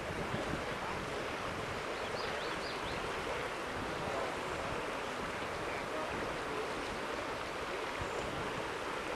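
Shallow water of the Mississippi River headwaters running and rippling over rocks under a log footbridge, a steady rushing noise. A few faint, short high chirps come about two to three seconds in.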